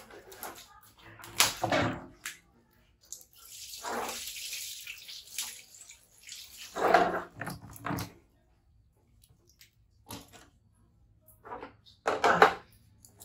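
Water poured from a plastic basin over a baby monkey, splashing onto a tiled floor for about two seconds. A few short, louder sounds come before and after the pour.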